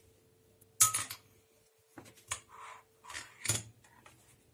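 A metal teaspoon clinking against a glass jar while scooping baking soda: three sharp clinks, the loudest about a second in, with softer scrapes of the spoon in the powder between.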